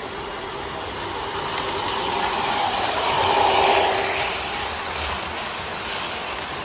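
O-gauge three-rail model passenger train running past on a curve: wheels and motor running on the rails, growing louder to a peak about three and a half seconds in as it passes close by, then fading as it moves away.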